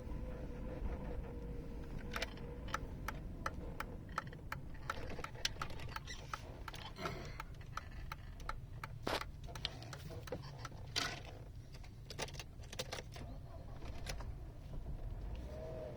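Mercedes-Benz W124's M111 four-cylinder petrol engine idling roughly: a steady low rumble with many irregular clicks and ticks over it.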